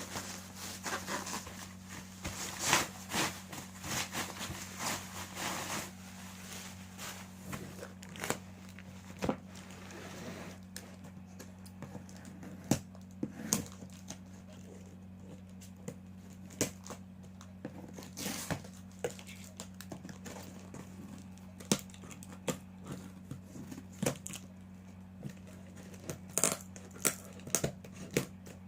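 Packaging being handled and opened: crinkling and tearing of wrapping for about the first six seconds, then scattered sharp clicks and knocks as the box and parts are handled. A steady low hum runs underneath.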